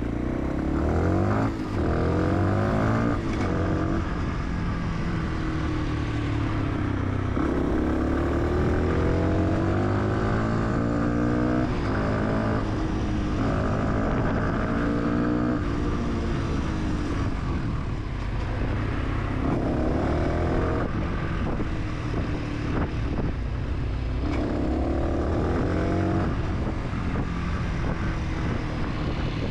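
Fantic 125 supermoto's single-cylinder engine pulling through the gears. Its pitch rises in repeated sweeps and drops back at each gear change, with spells of easing off between the pulls.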